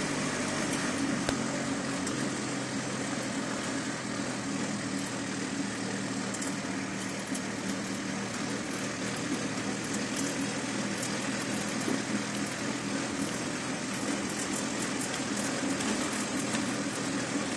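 A vehicle engine running steadily under a haze of road and rattle noise, with no clear change in pitch.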